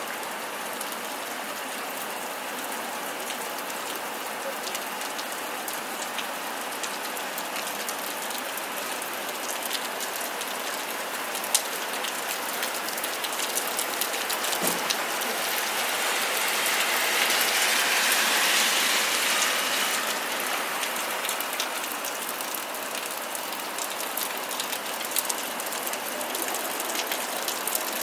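Steady rain falling, with many sharp drops ticking close by. The rush of the rain swells louder for a few seconds past the middle, then eases back.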